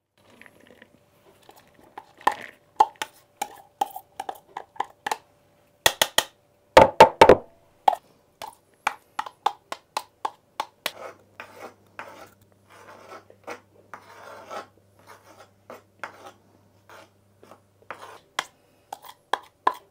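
Salad ingredients tipped and scraped into a bowl from a wooden cutting board: irregular taps, knocks and scrapes, with a loud cluster of knocks about seven seconds in.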